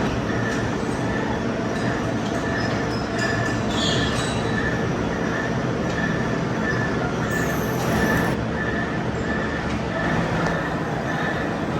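Metal-cutting machine tool running steadily, with a faint high note pulsing at a regular beat.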